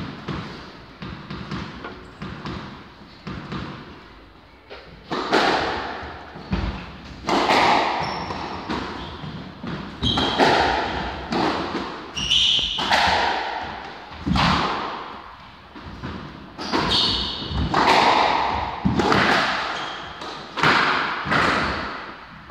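Squash rally: the rubber ball cracking off rackets and the court walls about once a second, each hit ringing out in the hard walled court, with lighter taps in the first few seconds before play gets going. Short high squeaks of shoe soles on the wooden floor come between some of the hits.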